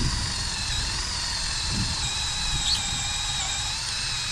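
Electric drill running steadily with a high motor whine, drilling out an old rusted metal pin set in a gravestone's base; the pitch sags a little under load in the middle and picks back up near the end.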